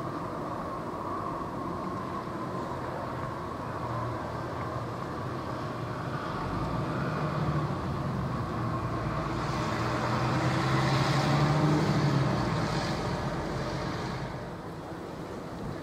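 A small fast workboat's engines running as it passes close by: a steady low drone with the rush of its wake, building to the loudest about ten to twelve seconds in and then fading away.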